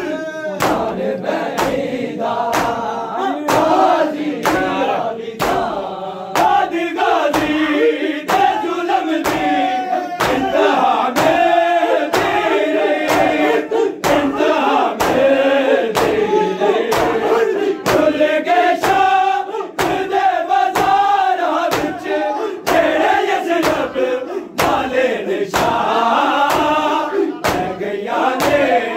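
Group matam: many men beating their chests in unison with open hands, a steady beat a little under two strokes a second, while they chant a noha together in loud voices.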